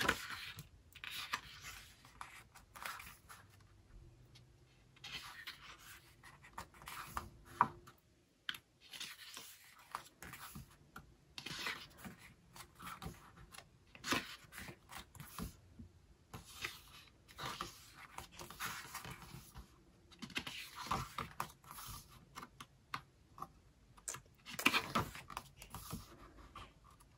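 Pages of a paper photo book being turned by hand: paper rustling and flicking in short, irregular bursts with quieter gaps between.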